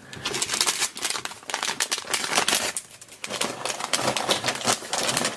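Foil blind-bag packet crinkling as it is handled and opened, a dense run of small crackles with a short lull about three seconds in.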